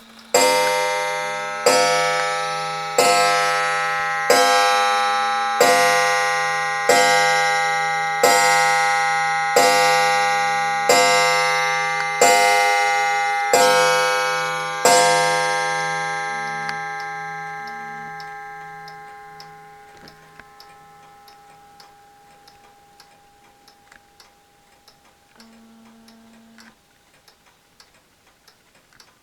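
Wall clock striking twelve on a bell, one ringing strike about every 1.3 seconds. After the last strike the ringing fades slowly, and the clock's faint ticking is left.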